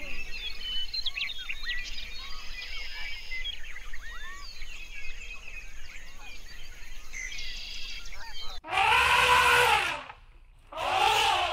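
Many birds chirping and whistling in a busy chorus. About eight and a half seconds in, a loud drawn-out call rises and falls in pitch, and a second similar call starts near the end.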